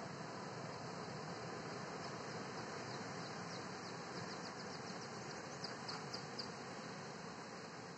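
Steady rushing of surf breaking on a beach below, heard from high above. From about two seconds in, a quick run of short, high chirps sounds over it for about four seconds.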